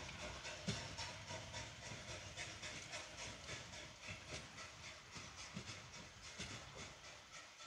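Steam train hauled by Pt47 locomotive Pt47-65 moving through the station yard. A quick, even rhythm of hissing beats, about three to four a second, over a low rumble, slowly growing fainter.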